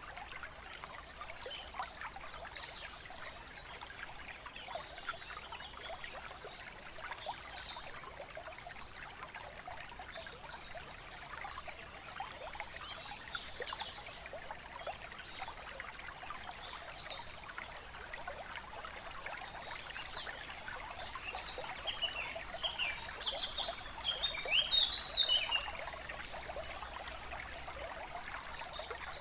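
Steady trickle of running water with birds chirping over it; a louder flurry of bird calls comes about three quarters of the way through.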